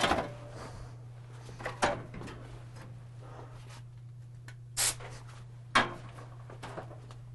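Four sharp knocks and clatters a second or more apart, the loudest about five seconds in, over a steady low hum.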